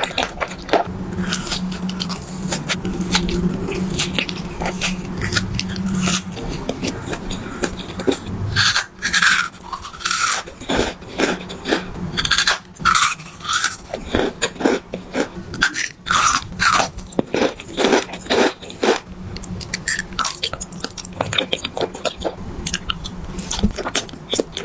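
Close-miked biting and chewing of candies and jelly sweets: a run of sharp crunches and bites at an uneven pace. A low steady hum sits under the first few seconds.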